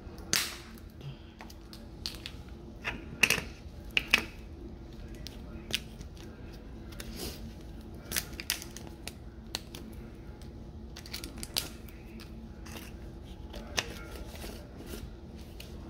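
Irregular clicks and taps of a seasoning container being opened and handled, loudest in the first few seconds, over a faint steady low hum.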